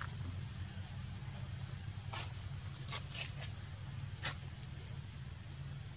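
Insects droning steadily on one high-pitched tone, with a few brief clicks about two, three and four seconds in.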